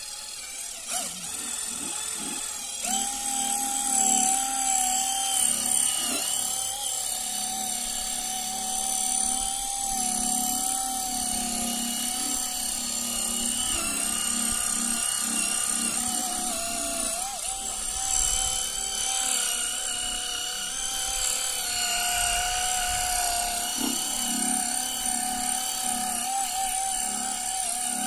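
Electric buffer running steadily with a high motor whine as it polishes a plastic headlight lens with plastic polish; the pitch sags slightly now and then as the pad is pressed to the lens.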